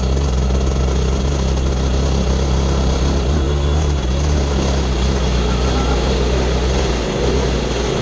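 Off-road vehicle engine running at a fairly even speed while riding, with a short dip in level about seven seconds in.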